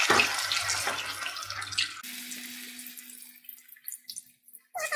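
Battered cauliflower pieces sizzling and crackling in hot deep-frying oil. The sizzle is loudest at first and drops off sharply about two seconds in, leaving faint scattered crackles.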